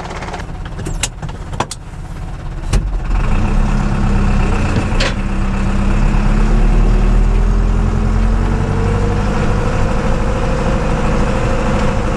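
A few sharp knocks and clicks as the driver climbs into the IHC 745 tractor's cab, then the tractor's diesel engine comes up to a louder steady drone heard from inside the cab as it drives off. Its note rises gently about eight seconds in.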